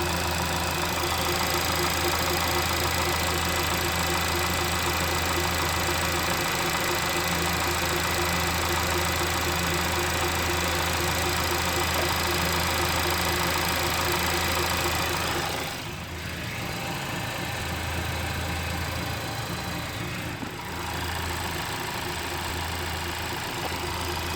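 Honda Civic Type R (FK8) 2.0-litre turbocharged four-cylinder engine idling steadily with a constant high-pitched whine over the engine note. The sound drops in level about two-thirds of the way through.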